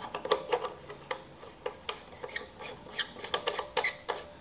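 Objectives being screwed back into the nosepiece of a Nikon E400 microscope: a run of small, irregular metallic clicks and ticks.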